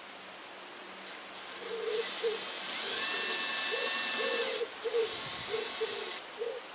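Power drill driving a screw: it runs for about four seconds with a steady whine, louder in the first half, then stops. A pigeon coos in repeated low hoots throughout the latter part.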